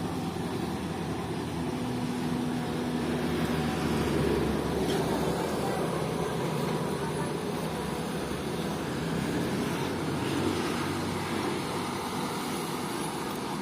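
Komatsu PC200 hydraulic excavator's six-cylinder diesel engine running steadily at work, a constant low drone.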